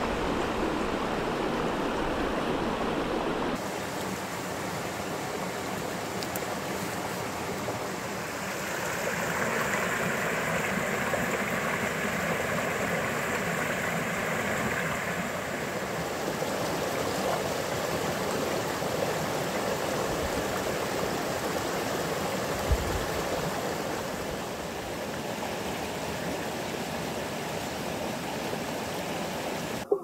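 Small mountain creek rushing and splashing over rocks in a steady flow, with one short knock about three-quarters of the way through.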